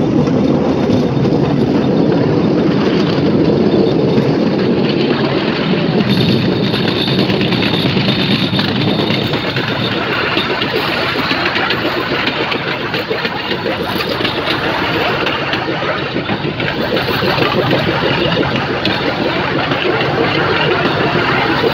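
Bamboo train (norry) running along the rails: its small engine runs steadily under a continuous fast rattle of the wheels and platform on the track.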